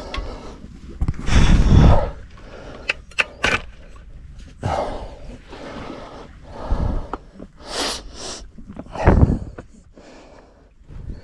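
Surf and wind noise in uneven rushing bursts. The loudest comes about a second in and another near the end, with a few sharp clicks around three seconds in.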